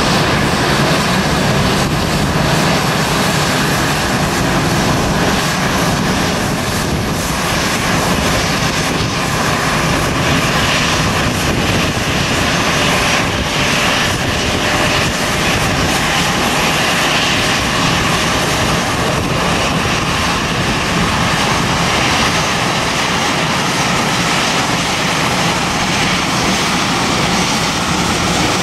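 Airbus A319 airliner's jet engines running at taxi power as it rolls past close by: a steady, even rush of engine noise with a faint whine.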